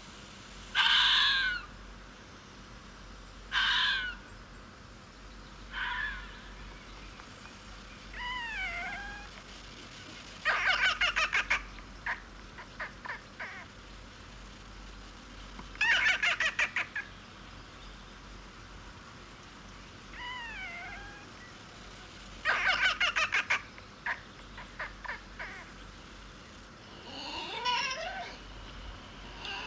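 Animal calls at intervals of a few seconds: short cries, falling glides, and loud bursts of quick repeated pulses.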